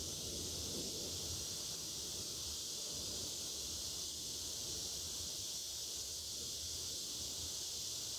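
Chorus of cicadas, a steady high-pitched drone that holds without a break, with a faint low fluttering underneath.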